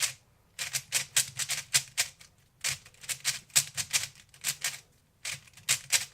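3x3 Rubik's cube being turned fast while executing a speedcubing algorithm: rapid clacking of the layers snapping through turns, several clacks a second, in three runs of about two seconds each with brief pauses between.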